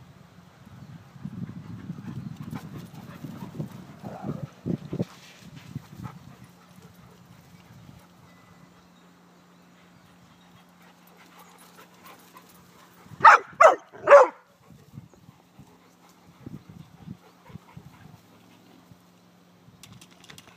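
A dog barks three times in quick succession, about half a second apart, about two-thirds of the way through. Before that there is low rumbling with a few thuds, and a faint steady low hum runs underneath.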